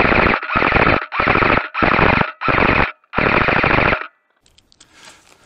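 Loud rapid automatic fire from a gun: six separate bursts, each under a second, ending about four seconds in.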